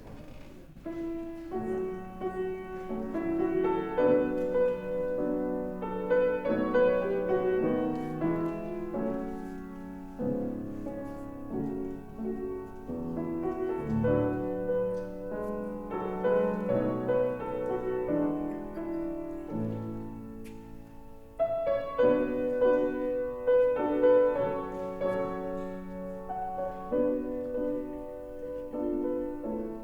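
Piano playing a classical-style offertory piece. It begins about a second in and grows louder again about two-thirds of the way through.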